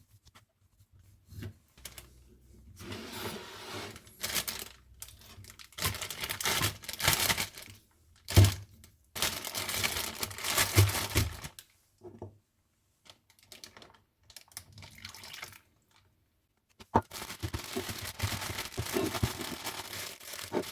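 Chicken and marinade being handled in a sealable plastic bag: bursts of crinkling, rustling plastic with a wet liquid sound, and one sharp knock about eight seconds in.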